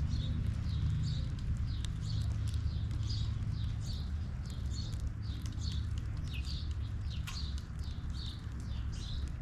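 A small bird chirping over and over, short high chirps at about two a second, over a steady low rumble.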